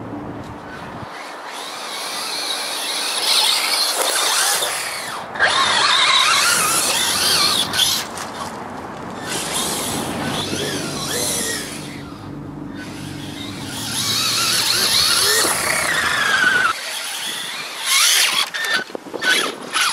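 Electric motor and drivetrain of an Axial Yeti XL RC rock racer whining, the pitch rising and falling as the throttle is worked, over the noise of the tyres on the ground. There are short sharp bursts near the end.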